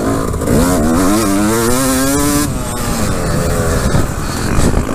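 Yamaha YZ250 single-cylinder two-stroke dirt bike engine revving under load, its pitch climbing for about two seconds, then dropping off as the throttle is rolled back, and climbing again near the end.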